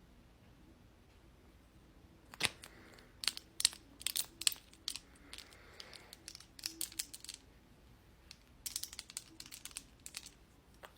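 Makeup products and tools being handled close to the microphone: a run of sharp clicks, taps and crinkles starting about two seconds in, pausing briefly a little past the middle, then resuming.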